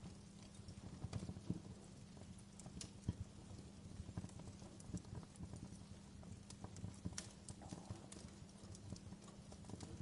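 Wood fire crackling in a fireplace: irregular pops and snaps over a low, steady rumble of the burning fire, with one sharper pop about three seconds in.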